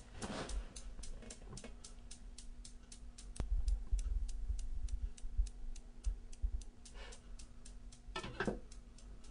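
Steel balls of a Newton's cradle clacking in a steady rhythm, about three to four clicks a second, over a low rumble.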